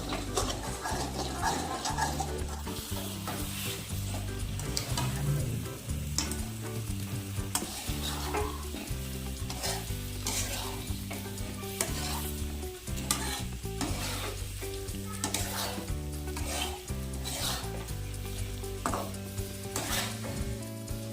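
Chicken frying in a pan, sizzling, with repeated scrapes of a spatula as it is stirred.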